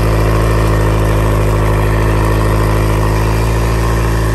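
Honda BF90D four-stroke outboard engine running steadily on flush water, tested after a new water pump install, with its telltale squirting a steady stream that shows the pump is moving cooling water.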